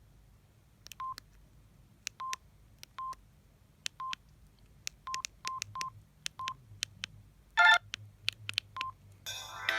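Samsung SGH-D600 mobile phone keypad: about nine key presses, each a faint click followed by a short beep of the same pitch, spaced unevenly over several seconds. A brief, louder chime comes just before eight seconds in. Near the end a polyphonic ringtone starts playing from the phone.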